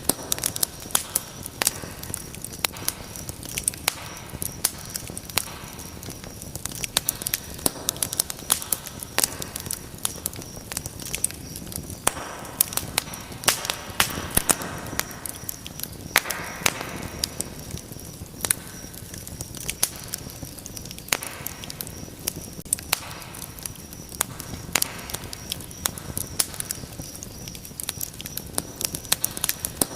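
Wood fire crackling in a fireplace: many irregular sharp pops and snaps over a steady hiss of burning.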